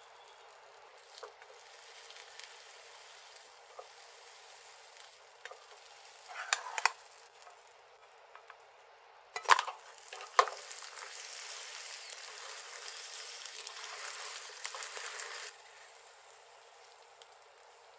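Slices of mochi rice cake frying in butter in a nonstick frying pan: a faint sizzle, a few clicks of a metal slotted spatula against the pan about six and a half seconds in, and two sharp knocks about a second apart as the cakes are turned. Then louder sizzling for about five seconds, which cuts off suddenly.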